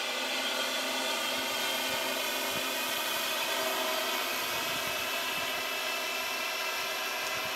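Quadcopter drone flying, its electric motors and propellers giving a steady whine with several pitches at an even level.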